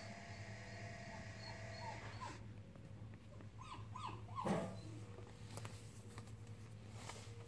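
Dog whining: a few short, high whimpers about two seconds in, then a run of louder whines around four seconds in, over a steady low hum.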